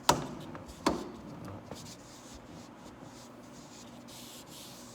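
Two sharp knocks a little under a second apart, then faint rubbing and handling noise as parts are worked on inside a car's interior trim.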